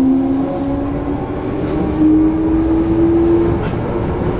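Toei 5300 series subway train running, heard from inside the car: the traction motor whine rises slowly in pitch as the train gathers speed, over the rumble of wheels on rail. About three and a half seconds in, the whine drops to a slightly lower steady tone.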